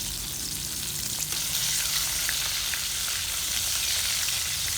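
Battered chicken pieces deep-frying in hot oil, a steady sizzle with many small crackles and pops, nearly done.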